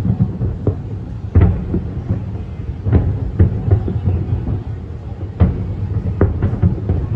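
Fireworks exploding: an irregular string of booms and sharp cracks, several a second at times, over a continuous low rumble, with heavy bangs about a second and a half in and again about five and a half seconds in.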